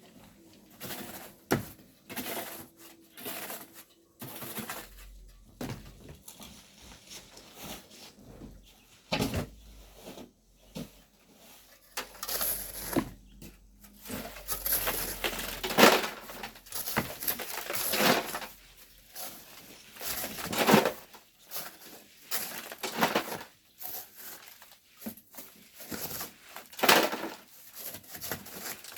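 Irregular scraping and knocking of hand tools, such as shovels and hoes, digging into volcanic sand and stones, with no steady rhythm.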